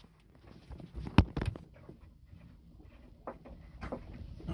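Handling noise as a hand unscrews the nut of an old through-hull fitting inside a boat's hull: faint rubbing, with a few sharp clicks, two of them about a second in and more near the end.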